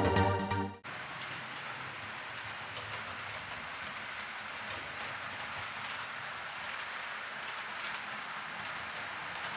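Electronic music cuts off under a second in; then a steady rolling hiss and rattle of a Roco H0 model train, a locomotive hauling intermodal container wagons, running on the layout's track.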